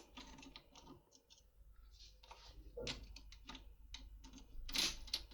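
Faint, irregular small clicks of a hook lock pick working the side sliders inside a transparent practice lock, with a louder cluster of clicks near the end.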